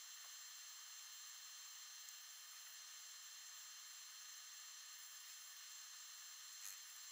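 Near silence: a faint steady hiss, with one tiny tick near the end.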